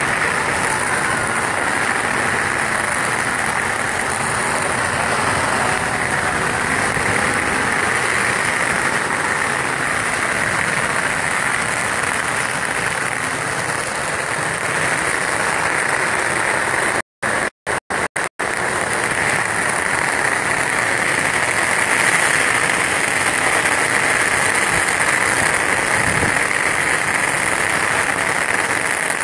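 Long strings of firecrackers going off, a dense, continuous crackle of rapid pops with a few brief dropouts just past halfway.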